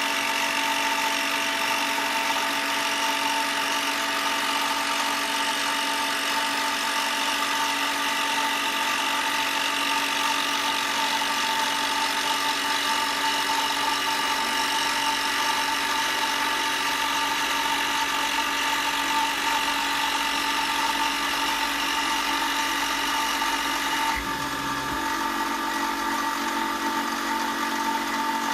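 Power tool motor running steadily at one constant pitch, with a whine and a hiss over it. Near the end the hiss drops away and the tone shifts slightly, but it keeps running.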